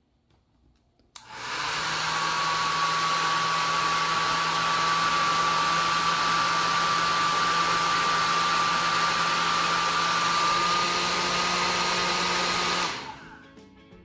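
Pingo Qmini HR-1709 compact travel hair dryer with a DC motor, switched on at its first (low) speed with a click about a second in, then blowing steadily: a rush of air with a thin steady whine over it. Near the end it is switched off and dies away over about a second.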